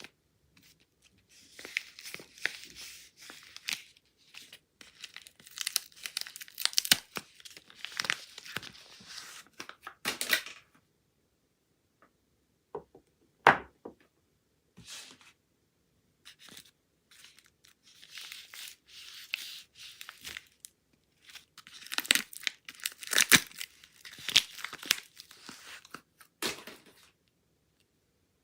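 Soap wrappers being torn open and crinkled by hand, in two long spells of crackly tearing with a short pause and a sharp tap between them.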